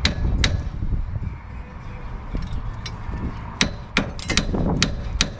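Hammer blows on the steel steering knuckle of a Ford Fiesta Mk6, driving its clamp down off the front suspension strut: about eight sharp metallic strikes, two near the start and a quick run of them in the last two seconds. The knuckle is stuck on the strut and is not budging.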